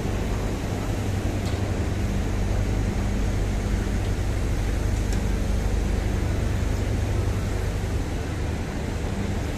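Heavy machinery at a hydraulic sugarcane unloading platform running with a steady low hum, with two faint ticks, one about a second and a half in and one about five seconds in.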